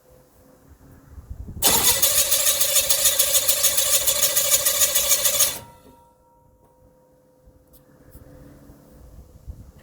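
Drag boat's V-drive inboard engine on open headers firing up about a second and a half in, running loud with a pulsing beat for about four seconds on its first start, then cutting out suddenly.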